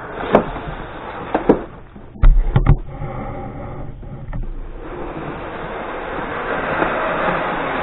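Styrofoam packing tray being slid out of a cardboard box: a few sharp knocks of cardboard, the loudest two about two and a half seconds in, a short squeak of foam, then steady rubbing of foam against cardboard.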